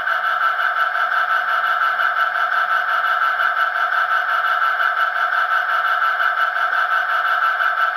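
ESU LokSound V4 decoder playing the sound of an EMD 710 twelve-cylinder diesel prime mover through a model locomotive's small speaker, running steadily with a fast even pulse. The sound is thin and high, with no bass.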